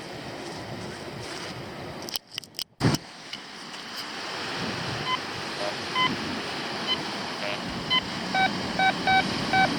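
Quest X10 metal detector beeping over a buried metal target: a few short tones at first, then a quick run of repeated beeps near the end. Wind on the microphone and surf hiss lie underneath.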